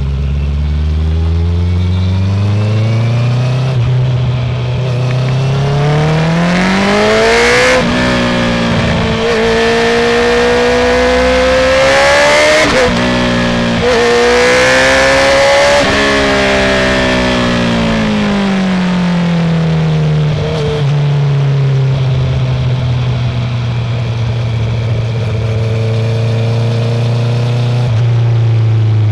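Honda CB650R inline-four with a full Akrapovic titanium exhaust pulling away from idle and revving up through the gears, with quick upshifts about eight and thirteen seconds in. The revs then fall away from about sixteen seconds and settle back to a steady idle.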